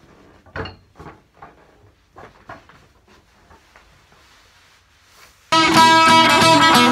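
Faint scattered knocks and bumps as a folding table is carried into the room. About five and a half seconds in, loud guitar background music starts abruptly and takes over.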